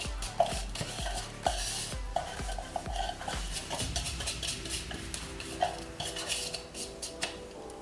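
Silicone spatula scraping crushed biscuit crumbs out of a plastic chopper bowl, with the crumbs falling into a metal cake tin and many light clicks and knocks of bowl and spatula against the tin.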